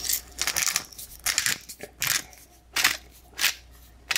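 Hand pepper mill grinding black pepper, twisted in a series of short crunching bursts, about seven of them.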